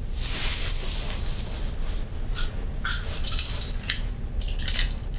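Soft rustling and handling noises: a longer hiss in the first second, then several short scuffs about two to five seconds in, over a steady low room hum.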